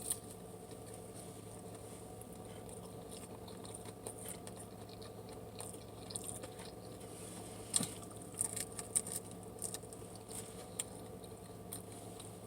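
Fried chicken being bitten and chewed close to the microphone: faint, scattered wet clicks and crunches, clustered past the middle, over a low steady hum.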